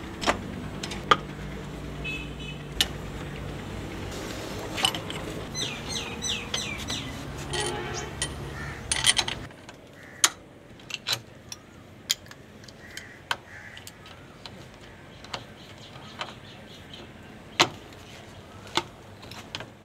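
Scattered sharp metallic clicks and clinks of spanners and a pipe wrench on the fittings of an old diesel engine under repair. A steady low hum runs under the first half and cuts off abruptly about halfway through. Birds chirp about five to eight seconds in.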